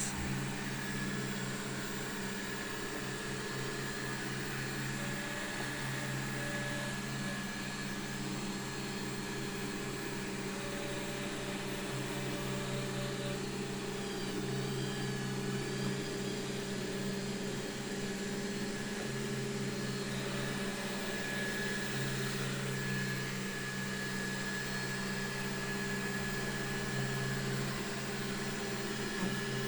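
Xiaomi Mi Robot Vacuum Mop 2 running: its suction fan and drive motors make a steady electric hum.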